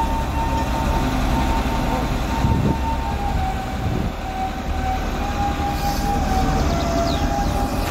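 Truck-mounted crane running at close range: a steady engine rumble with a high whine that shifts slightly in pitch a few times.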